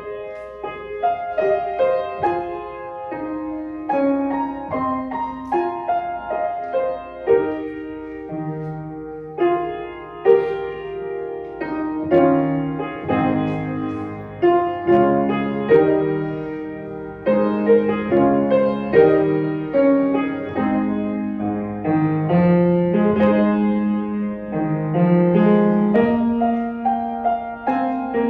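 Piano music, a run of single notes and chords played at a moderate pace, starting suddenly at the outset.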